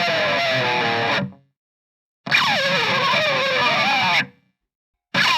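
Pick slides on a distorted electric guitar: a pick scraped along the wound strings, each slide a harsh scraping whine that falls in pitch. One slide fades out about a second in, a second runs for about two seconds in the middle, and a third starts near the end.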